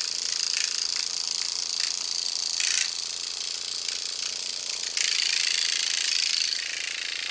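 Derminator 2 microneedling pen running against the skin with a steady, high-pitched motor whir. It grows louder about five seconds in and cuts off at the end.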